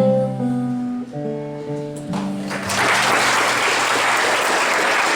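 Music with held chords comes to an end, and about two and a half seconds in an audience breaks into steady applause.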